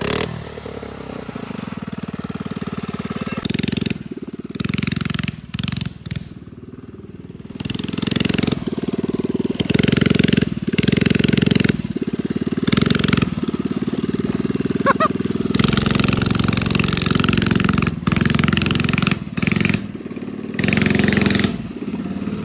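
Mini bike's small engine running and being ridden, revving up and easing off again and again as the throttle opens and closes.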